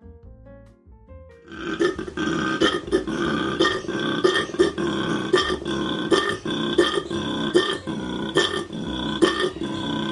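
An animal call: a loud, continuous, rough sound with many sharp clicks through it, starting about a second and a half in over faint background music.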